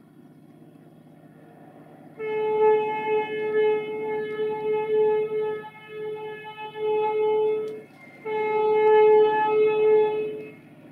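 Train horn sounding three long blasts on one steady note, with short breaks between them, over a low rumble of a train running.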